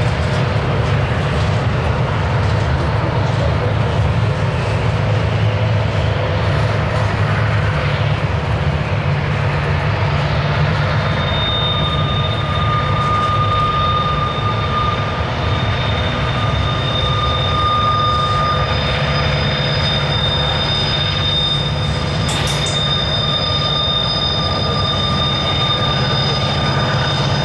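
Loaded double-stack intermodal well cars rolling slowly past with a steady low rumble. About eleven seconds in, wheel flanges start squealing on the curve: a steady high-pitched squeal in several tones that carries on.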